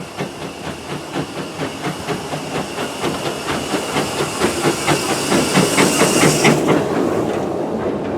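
Steam locomotive working, with a fast, even beat that grows louder and a hiss of steam that cuts off sharply about six and a half seconds in.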